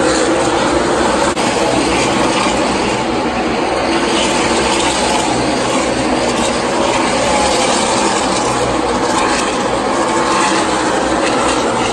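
A field of NASCAR Xfinity Series stock cars running at racing speed, their V8 engines blending into one loud, steady drone.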